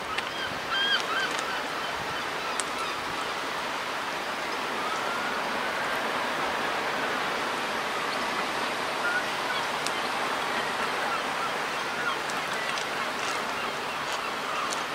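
Faint, wavering bird calls over a steady hiss of wind and outdoor background noise.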